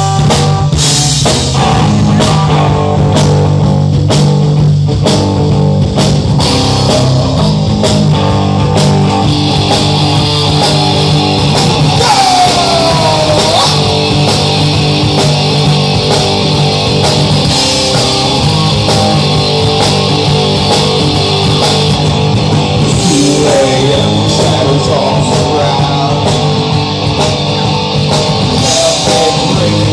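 Live rock band playing loudly: electric guitar and drum kit with cymbal hits, with some singing over them.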